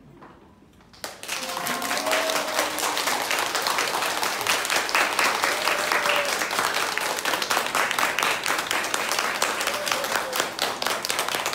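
Audience applause that starts suddenly about a second in and continues as steady, dense clapping, with a few voices calling out over it.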